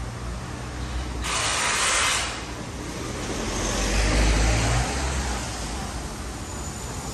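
Street traffic: a short hiss about a second in, then a passing vehicle's engine rumble that swells to its loudest around four seconds in and fades.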